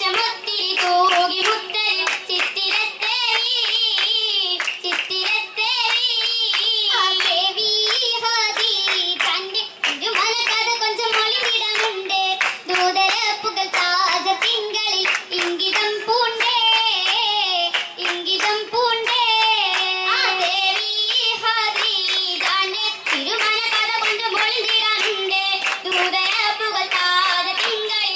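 Girls' chorus singing an Oppana song, with the dancers clapping their hands in rhythm throughout.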